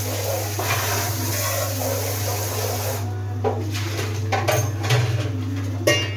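Steady low hum, with several light knocks and clicks in the second half, the loudest just before the end.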